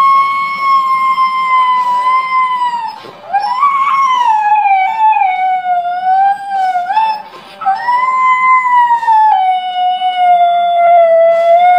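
Siberian husky howling in three long, unbroken howls with short breaths between them about three and seven and a half seconds in. The pitch wavers and slides, with the middle howl rising and then falling and the last one stepping down lower partway through.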